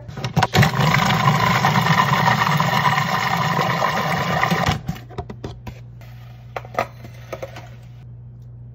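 Food processor motor running for about four and a half seconds, blending cream cheese, yogurt and eggs into a smooth cheesecake batter, then stopping. A few short knocks and clicks follow.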